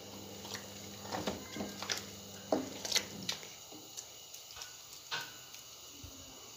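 Wooden spoon stirring grated carrots simmering in milk in a large metal pot, with irregular knocks and scrapes against the pot that stop about five seconds in.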